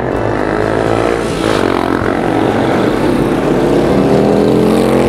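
A motor vehicle's engine accelerating close by in street traffic, its pitch rising and its loudness building toward the end.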